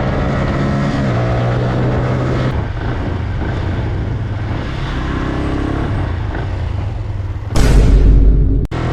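A vehicle engine running at a steady pitch, with a loud, noisy rush about a second long near the end that cuts off abruptly.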